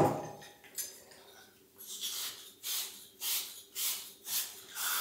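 A sharp knock at the start, then copper pipe being scrubbed clean by hand with an abrasive ahead of soldering: short rasping strokes, about two a second, from about two seconds in.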